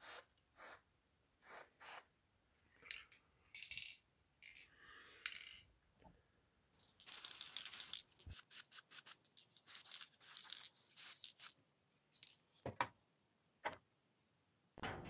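Aerosol spray-paint can hissing in many short bursts, with one longer spray about seven seconds in, as red paint is laid on a hatchet head. Two sharp clicks near the end.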